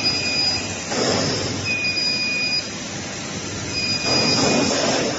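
Factory running noise from a continuous annealing furnace line, with a high electronic beep about a second long that repeats every two seconds or so. The noise swells about a second in and again near the end.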